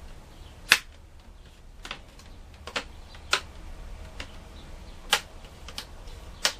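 Plastic laptop screen bezel being pressed back onto the lid, its clips snapping into place in a string of sharp clicks at irregular intervals.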